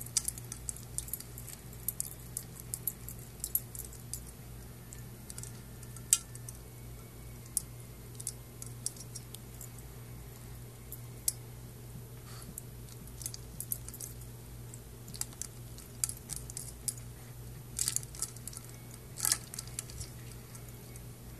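Ice cubes clinking and knocking against a stainless steel water bowl as a puppy paws and noses at them: irregular sharp clicks, a few much louder than the rest.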